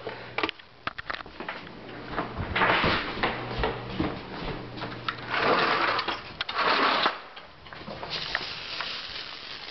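A few sharp clicks as the buttons of a sprinkler irrigation controller are pressed, then stretches of rustling, shuffling handling noise as the camera is carried along.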